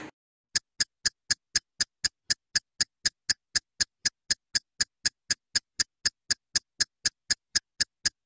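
Ticking sound effect: sharp, evenly spaced ticks at about four a second, starting about half a second in, with dead silence between them.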